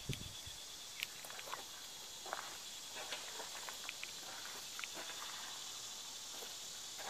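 Steady high-pitched chirring of insects, with footsteps crunching on gravel every second or so and a brief low bump of camera handling right at the start.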